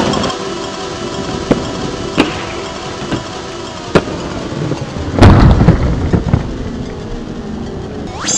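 Skateboard clacking on concrete pavement, with a few sharp knocks, then a louder low rumble about five seconds in.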